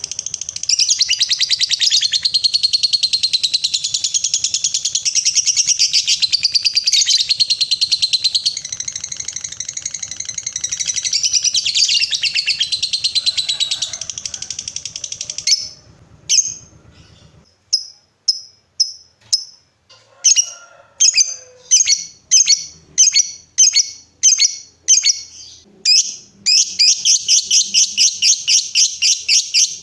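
Lovebird singing the long 'ngekek' chatter: a rapid, unbroken high-pitched trill for about fifteen seconds. It then breaks into separate short chirps and runs back into a fast trill near the end.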